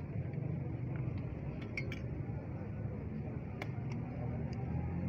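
Metal spoon clinking against steel bowls and plates, a few sharp clinks a little under two seconds in and another past three and a half seconds, over a steady low din of street traffic and crowd chatter.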